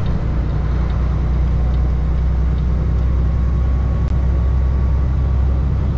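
Semi truck's diesel engine running steadily at cruise, heard from inside the cab as a constant low drone mixed with road noise.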